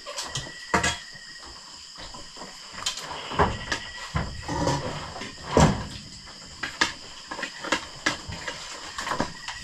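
Scattered irregular knocks and clicks, the loudest about five and a half seconds in, over a faint steady high-pitched drone.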